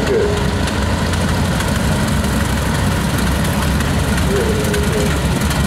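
Antique farm tractor engines running at low speed as the tractors roll past, a steady low chugging throughout.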